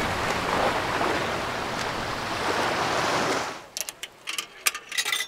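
A steady rushing ambient noise that drops away about three and a half seconds in. It is followed by a scatter of short, sharp crackles and clicks before the sound cuts out.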